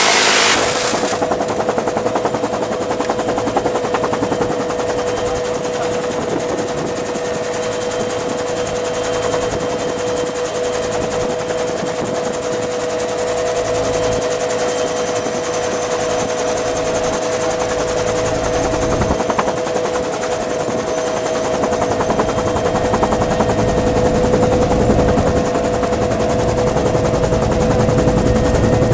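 Dillon Aero M134 minigun firing a continuous buzzing burst that cuts off about a second in. It is followed by the steady noise of a Bell UH-1 Huey helicopter heard from its open cabin door: rotor and turbine running, with a steady two-note whine.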